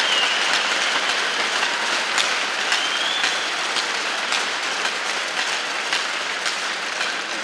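Arena crowd applauding, the clapping gradually dying away toward the end.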